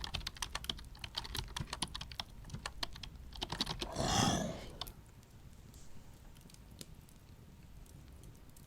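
Rapid, irregular clicking of computer keyboard keys being typed on; the typing breaks off about four seconds in, where a short low growl is heard, and only a few faint keystrokes follow.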